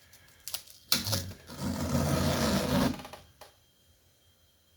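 Tape being peeled off a canvas: a couple of clicks, then a loud ripping sound lasting about a second and a half.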